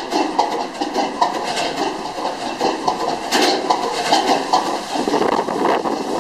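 Large stationary gas engines running inside the engine house, heard at their outside exhaust stacks: a dense, uneven clatter of sharp exhaust knocks over a steady rumble.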